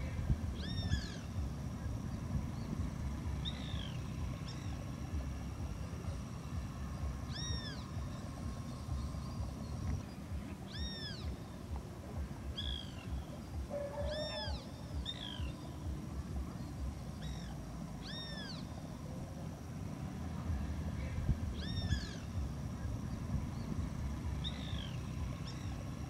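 An animal's short, arched calls, each rising then falling in pitch, repeated about a dozen times a few seconds apart, over a steady low rumble.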